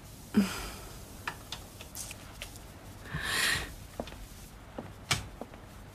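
A room door being handled: a sharp click as it opens near the start and another latch click about five seconds in as it is pushed shut. Soft footsteps and a brief swish come in between.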